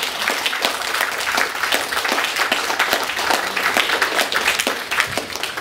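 Applause: many hands clapping, dense and continuous.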